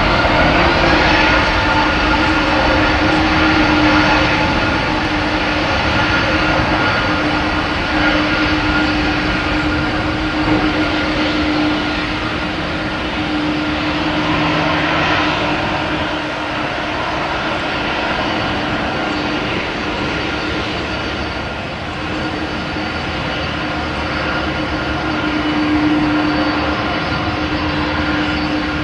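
CFM56-7B jet engines of a Boeing 737-900 running at taxi power as the airliner taxis past, a steady whine and low hum over the rush of the engines.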